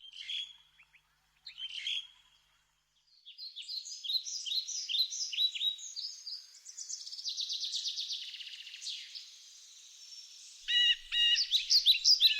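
Birds chirping and singing: scattered high chirps at first, then a fast, dense run of chirps and trills.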